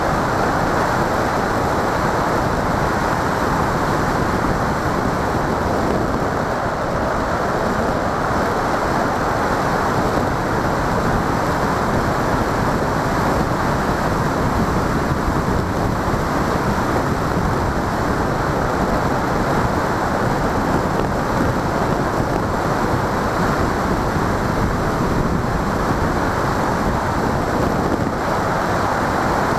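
Steady rush of wind over the onboard camera's microphone of an FPV model aircraft in flight, with no distinct motor tone standing out.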